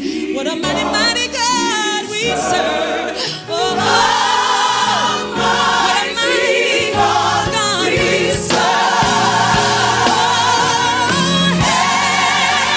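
Gospel choir singing with vibrato over instrumental accompaniment.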